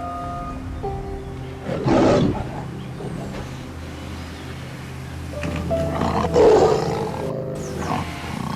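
A big cat roaring and growling in two loud outbursts, about two seconds in and again past six seconds, over gentle background music with held notes.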